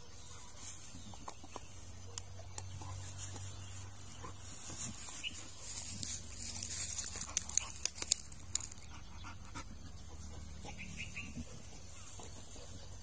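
A bully-breed dog chews and gnaws on something in the grass, with a run of sharp crunching cracks about six to eight seconds in.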